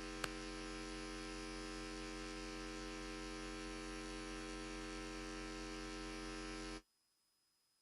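Steady electrical mains hum with a faint buzz, and a single click just after it begins. It cuts off suddenly to dead silence about a second before the end.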